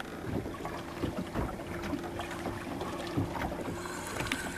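Wind and water noise aboard a boat at sea, with a steady hum running through it and scattered small knocks and clicks.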